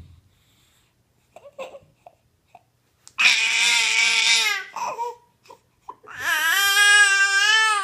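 A seven-month-old baby letting out two long, loud, high-pitched vocal screeches, the first falling in pitch, the second wavering and held past the end.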